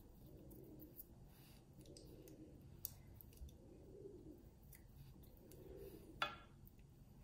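Kitchen knife slicing through a raw peeled sweet potato held in the hand, in a near-quiet room: a few faint clicks, then one sharp, crisp cut about six seconds in.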